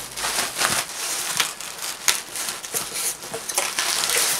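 Clear plastic wrapping crinkling and polystyrene packing peanuts rustling as hands dig into a cardboard box, in a run of irregular crackly bursts.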